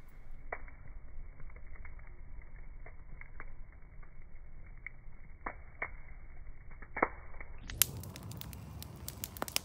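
Wood campfire crackling, with irregular sharp pops and snaps over a low steady noise. The sound is muffled at first and turns clearer and brighter about three-quarters of the way through.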